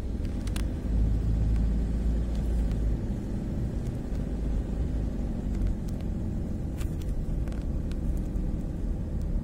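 Low rumble of a car driving, heard from inside its cabin. It swells for a couple of seconds about a second in, with a few faint clicks.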